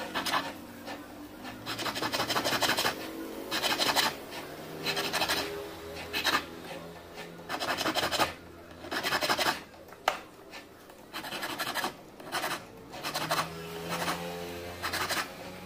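A flat hand file rasping across the outer band of a silver ring, in repeated short strokes with brief pauses between them.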